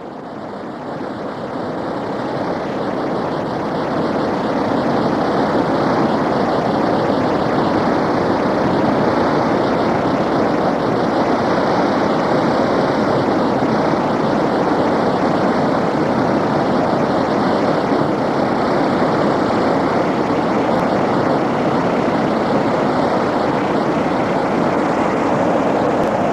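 Water released through the Oker dam's outlets in two jets, crashing into the foaming basin below: a loud, steady rushing that fades in over the first few seconds. The dam is discharging heavily with the reservoir close to overflowing.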